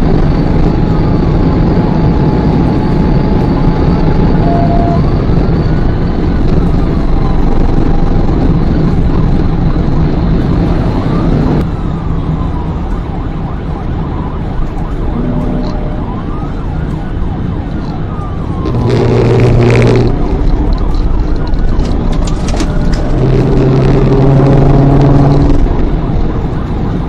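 Police car siren wailing, rising and falling in pitch every three to four seconds, over loud steady road and engine noise of a car in a high-speed pursuit. Twice, near the two-thirds mark and again a few seconds later, a brief louder sound with a low steady tone cuts in.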